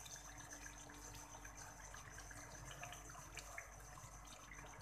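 Beef karahi simmering in its separated oil in a steel pan, faintly sizzling and bubbling with scattered small crackles.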